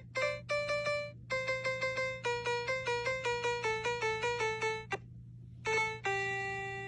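Background music: a quick melody of short, bright keyboard-like notes, pausing briefly about five seconds in, then ending on a long held note that fades out. A steady low hum runs underneath.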